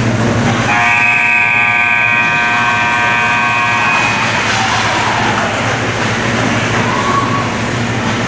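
Ice rink scoreboard horn sounding one steady blast of about three seconds as the game clock runs out, marking the end of the period and the game, over the noise of the rink.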